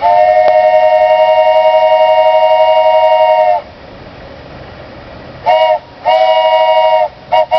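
Wooden train whistle blown with none of its finger holes covered, sounding a steady chord of several notes. One long blast of about three and a half seconds, then a short blast, a blast of about a second, and two quick short toots near the end.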